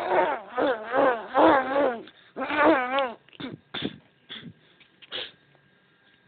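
Domestic cat yowling: a run of drawn-out calls with a wavering pitch over the first three seconds, followed by four short, clipped sounds.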